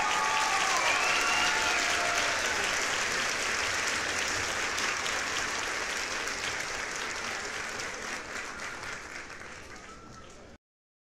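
Crowd applause, loudest at the start and fading out gradually until it stops shortly before the end.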